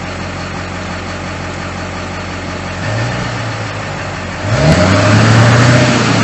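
Turbocharged truck engine idling with a steady low hum, swelling a little about three seconds in, then growing louder with a brief rise in pitch about four and a half seconds in.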